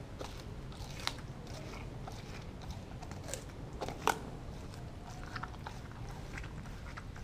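Kelpie / German Shepherd cross chewing and biting into a frozen raw turkey thigh steak, giving irregular sharp crunches, the loudest about four seconds in.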